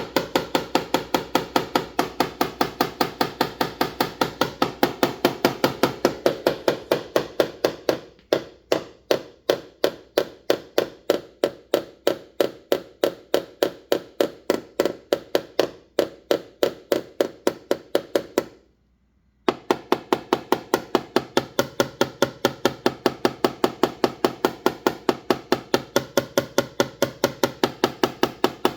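Hammer tapping on a car body panel with a knockdown tool during paintless dent repair. The taps are sharp and even, about three to four a second, and stop briefly about two-thirds of the way through.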